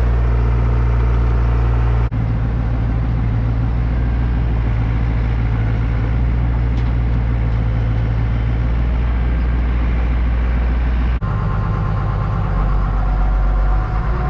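Gehl skid loader's diesel engine running steadily, heard from close by. About eleven seconds in, after a cut, it gives way to the 2090 mixer tractor's engine running, with a busier, higher tone.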